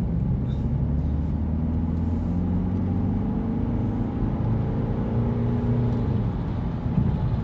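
Car driving along a road, heard from inside the cabin: a steady engine hum with road noise, the engine note rising gently and then falling back.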